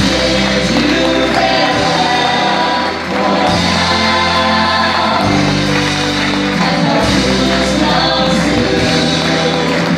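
Stage-musical cast singing together over a live band, the ensemble voices carrying held notes above a steady bass line.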